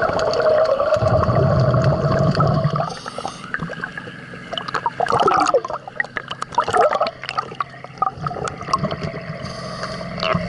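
Underwater sound of a scuba diver breathing through a regulator: a steady inhale for the first few seconds, then gurgling, bubbling exhaust bubbles.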